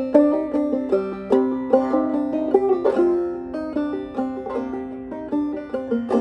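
Open-back clawhammer banjo in Double C tuning playing a slow, haunting melody, quick plucked notes over ringing drone strings.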